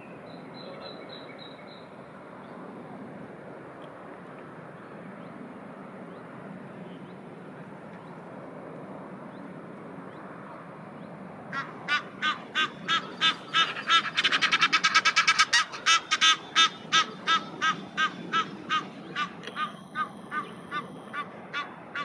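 An Egyptian goose calling: about halfway through, a long series of loud honks begins, quickens into a rapid run, then slows and spaces out again until just before the end. A steady low background hum lies under it throughout.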